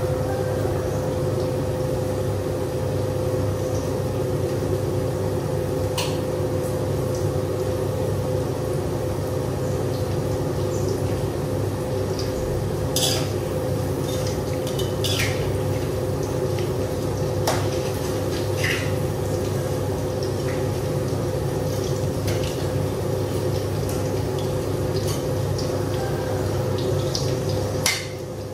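A metal spatula scrapes and clinks against a frying pan as food is stir-fried on a gas stove, in scattered strokes over a steady background hum.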